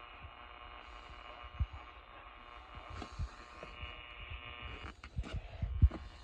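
Steady low hum with a few soft low thumps, the strongest near the end.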